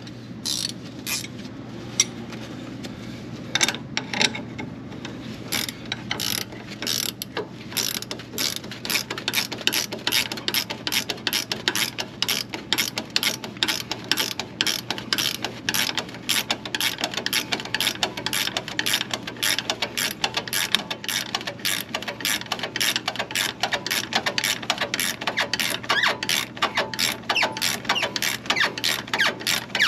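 Hand ratchet's pawl clicking as the sway bar end link nut is tightened: a few scattered clicks at first, then a steady run of about three clicks a second.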